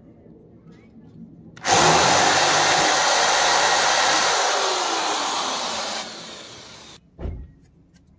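Hand-held power drill with a metal-cutting bit drilling out an existing rivet hole in a metal tent-frame pole. It starts about one and a half seconds in, runs loud with its motor note falling as the bit bites, eases off and stops near the seven-second mark, followed by a single short knock.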